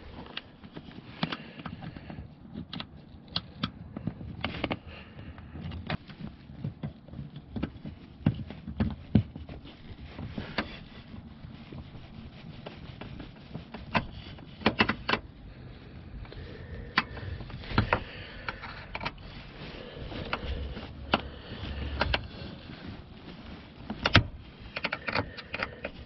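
Irregular clicks and taps of a hand screwdriver and screw against the plastic seat side trim as the trim screws are driven in.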